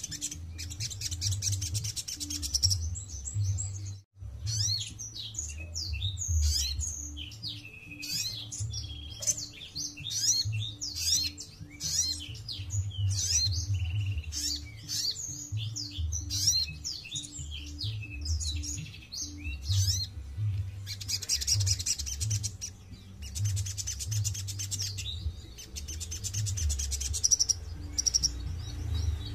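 Caged sunbird singing: fast runs of high, twittering chirps through the middle, with dense buzzy high trills in the first few seconds and over the last third. A low pulsing hum runs underneath.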